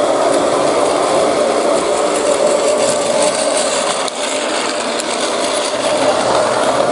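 A train running steadily: a continuous mechanical hum at an unchanging pitch with hiss over it, dipping briefly about four seconds in.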